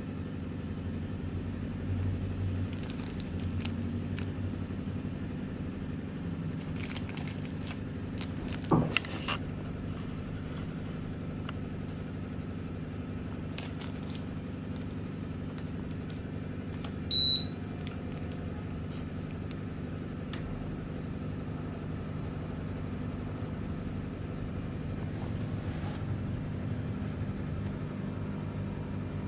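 Samsung 1.0 hp mini-split air conditioner running with a steady hum, its airflow restricted by very dirty evaporator coils, as the owner describes. A single knock comes about nine seconds in, and a single short, high beep a little past halfway, typical of the indoor unit acknowledging a remote command.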